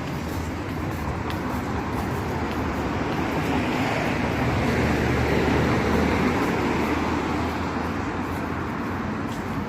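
Road traffic noise: a steady rush of vehicles with a low engine hum that swells a little about halfway through, as a vehicle goes past, and then eases.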